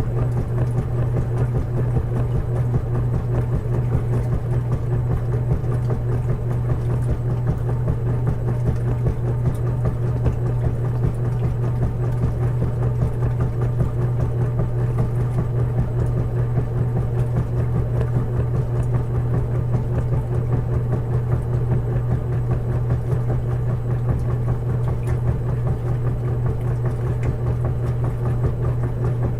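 Washing machine running with a steady low hum and a fast, even flutter, with no pauses or changes.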